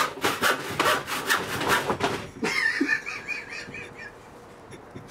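Handsaw cutting across a wooden plank in quick back-and-forth strokes, about four rasps a second. The sawing stops about two and a half seconds in.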